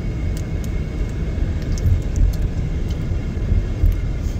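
Steady low rumble of a car driving at road speed, heard from inside the cabin: tyre and engine noise with no distinct events.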